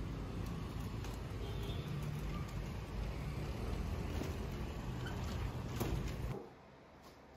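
Street traffic noise, a steady low rumble, with a few light clicks and clatters. About six seconds in it cuts off abruptly to quiet room tone.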